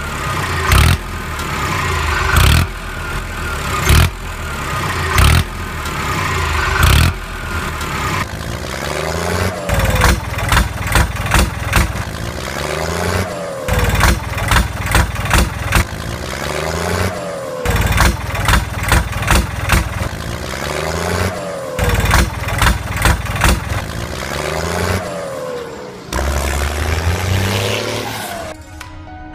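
Dubbed tractor engine sound effect, revving in repeated surges and punctuated by regular loud thuds.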